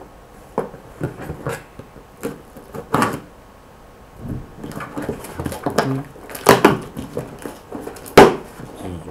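A small cardboard box being handled and opened by hand: a string of irregular knocks, scrapes and rustles, the loudest knocks about six and a half and eight seconds in.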